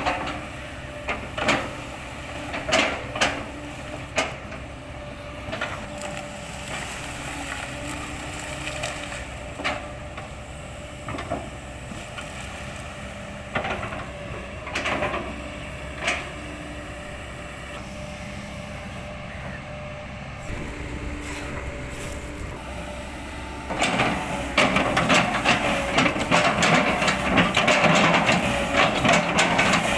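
Kobelco excavator's diesel engine running steadily while its bucket chips oil palm trunks, with scattered sharp cracks of splitting wood. About three-quarters of the way in this becomes continuous, louder crunching and splintering.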